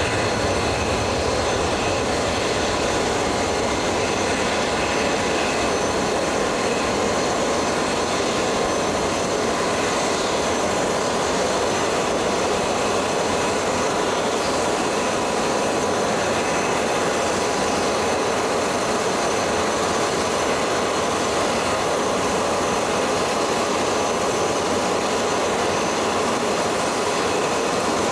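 Jet engine running steadily at idle: a constant rushing noise with a thin high whine over it.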